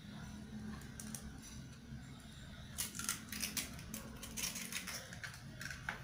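Eggs being cracked against and broken into a glass mixing bowl: a series of sharp shell cracks and clicks from about three seconds in, over a low steady hum.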